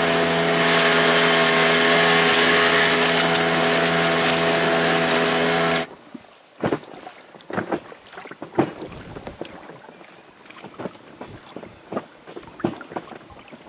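Outboard motor running at a steady speed, pushing an inflatable boat across choppy water. It cuts off suddenly about six seconds in, leaving a much quieter stretch of scattered faint clicks and taps.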